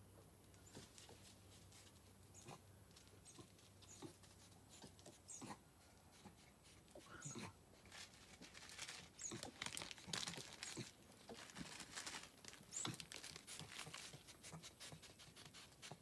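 An animal close by, rustling and clicking faintly with a few brief calls, busier after about eight seconds.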